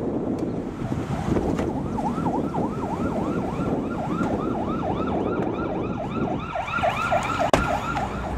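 Emergency vehicle siren in a fast yelp, its pitch sweeping up and down about three times a second, starting about two seconds in, over steady wind and traffic rumble.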